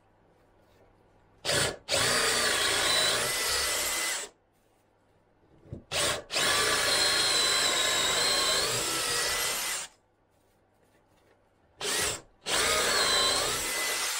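DeWalt XR cordless drill boring into a timber beam with a large wood bit to cut out a mortise. It runs three times for two to four seconds each, each run starting with a brief trigger blip, the motor pitch wavering as the bit loads up in the wood.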